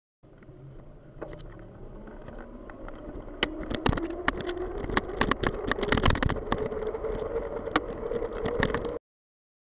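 Traffic pulling away from a green light, heard from a bicycle-mounted camera as the cyclist gets going: a hum that rises slowly in pitch and grows louder. Wind buffets the microphone with a run of sharp pops from about three and a half seconds in, and the sound cuts off suddenly near the end.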